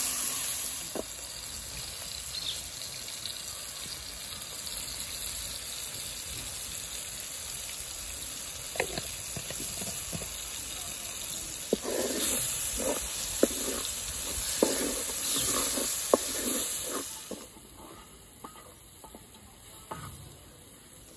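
Onions, tomatoes and green chillies sizzling in oil in an aluminium pot, with a wooden spatula scraping and knocking against the pot as they are stirred. The sizzle drops away about three-quarters of the way through.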